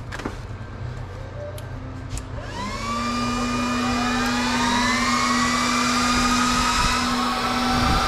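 Server power supplies being switched on: a few clicks, then about two seconds in their small high-speed cooling fans spin up together in a rising whine that levels off into a steady, loud whir, like a jet.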